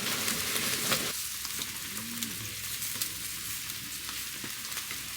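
Pork belly sizzling and crackling on a wood-fired barbecue grill.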